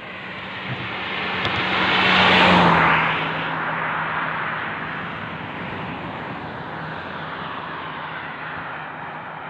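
A motor vehicle passing on the highway. Its sound builds to a peak about two and a half seconds in, the engine note dropping slightly as it goes by, then settles to a steady, lower road hiss.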